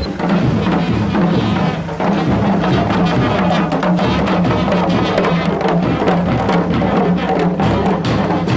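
A students' marching band playing as it walks: drums beaten in a steady rhythm, with bugles sounding over them.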